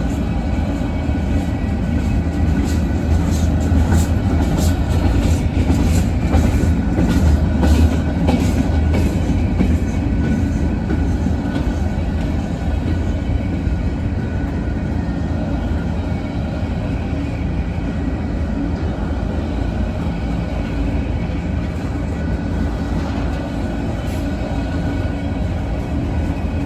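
Freight train cars rolling past: a steady low rumble of steel wheels on the rails, with a quick run of clicks from the wheels over rail joints a few seconds in.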